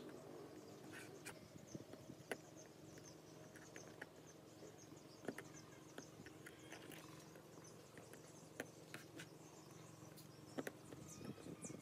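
Near silence: faint background hum with scattered light clicks and brief high-pitched ticks.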